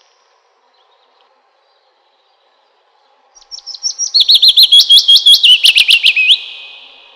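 A songbird singing one loud, roughly three-second phrase of rapid, high, repeated notes that quicken and end on a rising note, starting about three seconds in.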